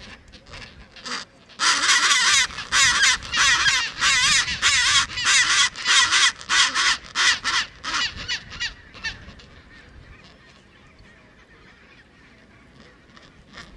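Chinstrap penguins calling: a loud run of rapid, repeated harsh calls close by for about six seconds, then fading to fainter calls from the colony.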